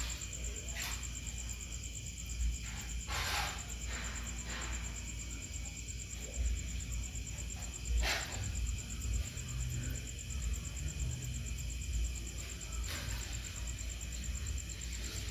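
Night insects such as crickets trilling steadily in a high, even tone over a low rumble. A few brief rustling noises come about three, eight and thirteen seconds in.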